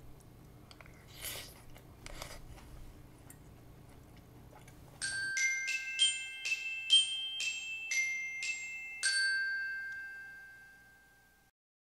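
A short outro jingle of bright, bell-like mallet notes, like a glockenspiel, starts about five seconds in after faint quiet. About nine notes are struck, and the last one rings on and fades away.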